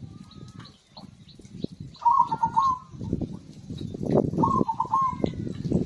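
Zebra dove (perkutut) cooing: two short rolling song phrases, about two seconds in and again about four seconds in. Faint chirps of small birds and a low rumbling noise that grows louder in the second half lie underneath.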